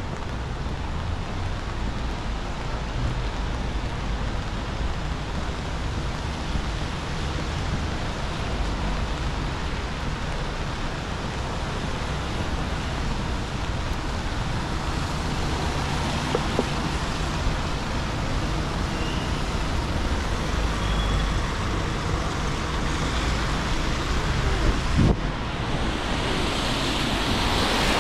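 Traffic on a wet city street in the rain: a steady low rumble under an even hiss, with a sharp click about 25 seconds in and a hiss that swells near the end.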